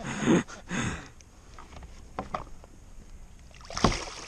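A large fish splashing and thrashing at the surface beside a kayak while held on a lip gripper, with a loud splash about four seconds in. Softer splashes and handling noise come in the first second.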